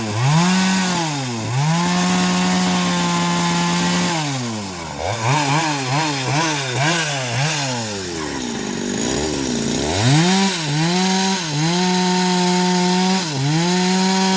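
Petrol saw engine cutting teak wood, its revs climbing, holding and sagging again and again as the blade bites and frees up in the cut, with the rasp of sawing over it.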